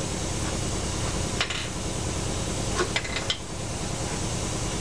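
Metal clicks and clinks of hand tools and engine parts being handled at a V6 outboard powerhead during teardown: a few sharp clicks, one about a second and a half in and a cluster around three seconds in, over a steady low shop hum.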